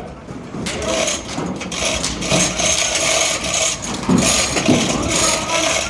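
Pigs scrambling on a loading ramp and truck floor during loading, their hooves clattering and scraping with knocks, over a steady high hiss.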